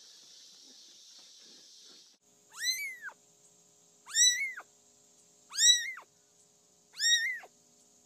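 A tiny kitten meowing four times, about every second and a half; each meow is short and high-pitched, rising and then falling in pitch.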